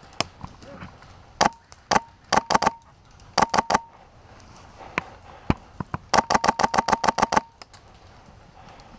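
Airsoft guns firing: scattered single shots and short volleys, then a longer rapid burst of about a dozen shots, roughly ten a second, about six seconds in.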